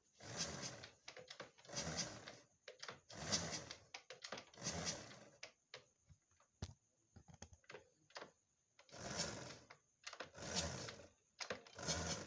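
Honda Supra X 125's single-cylinder four-stroke engine being kick-started over and over without firing: about six kicks, each bringing a short rattling burst like a loose chain, with light clicks between and a pause midway. The compression is very low and the owner suspects the timing chain has come off.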